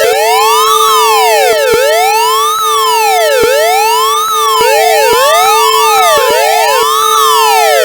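Loud synthetic 'alien police' siren sound effect: overlapping wailing tones sweep up and down, a full rise and fall about every 1.7 s, over a steady held tone.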